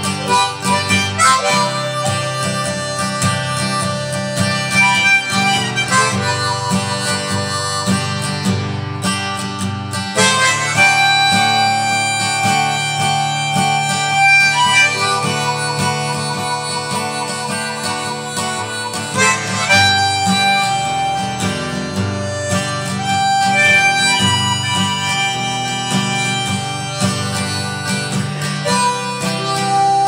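Harmonica playing held notes and short phrases over acoustic guitar accompaniment.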